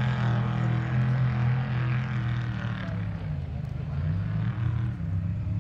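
A vehicle engine running steadily at an even, low pitch.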